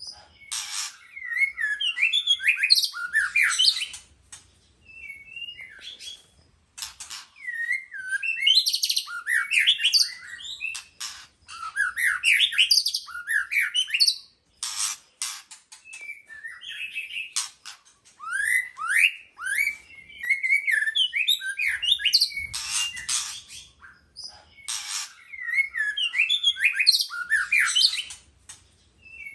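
White-rumped shama singing in long phrases of rapid, varied whistles, rising and falling sweeps and sharp clicking notes. The phrases are broken by brief pauses of a second or two.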